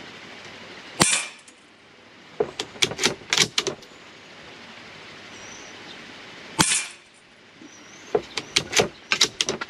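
Two .22 LR rifle shots from a Citadel TRAKR, about five and a half seconds apart. Each shot is followed a second or so later by a quick run of metallic clicks as the bolt is worked to clear the case and chamber the next round.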